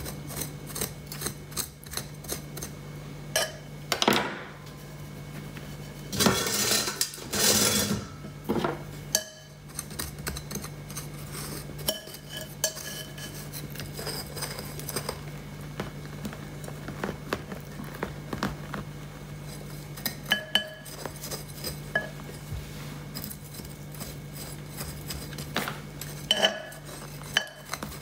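Metal kitchen knife scraping and clinking against the inside of a glazed ceramic planter as it pries a cactus root ball out of dry potting soil: many small clicks, with a longer, louder scraping stretch about six to eight seconds in.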